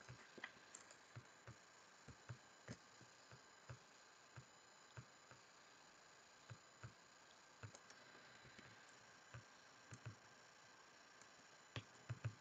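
Computer mouse clicking: faint, irregular single clicks, about two dozen, with a quick cluster of clicks near the end.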